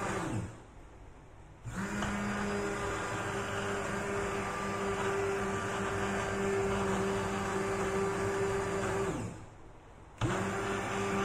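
Hand-held immersion blender puréeing pumpkin soup in a pot, its motor running with a steady whine. Twice it winds down, falling in pitch and stopping, then starts again about a second later.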